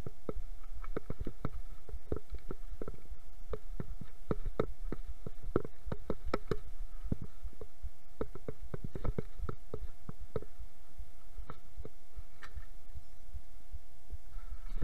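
Mountain bike descending a rough, leaf-covered forest singletrack: frame and components rattle and knock in irregular clusters over roots and rocks, over a constant low rumble.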